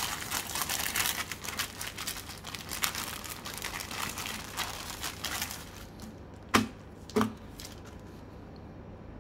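Thin clear plastic bag crinkling and rustling as it is handled and opened, dense and continuous for the first half or so. Partway through, two sharp taps come less than a second apart and are the loudest sounds; quieter handling follows.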